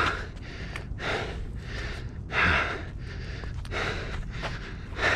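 A man breathing hard, a heavy breath about every second, the loudest about halfway through: out of breath from walking uphill. A steady low rumble runs underneath.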